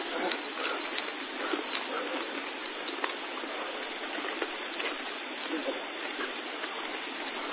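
Steady outdoor forest ambience: an even hiss with a constant high-pitched whine and a few faint scattered ticks.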